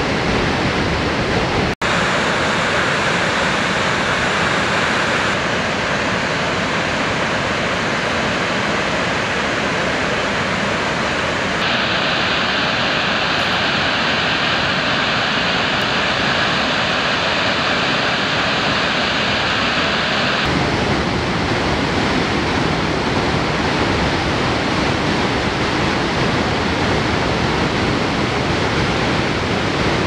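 Saala waterfall's water rushing steadily down its cascade as an even, full roar of falling water. The sound drops out for an instant about two seconds in, and its tone changes abruptly a few times where recordings are joined.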